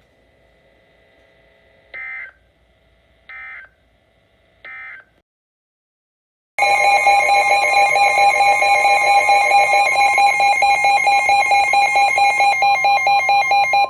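Three short bursts of EAS SAME digital data tones, then after a brief pause a loud, harsh electronic alert tone pulsing rapidly for about seven seconds: the alert sounding for an incoming severe thunderstorm warning.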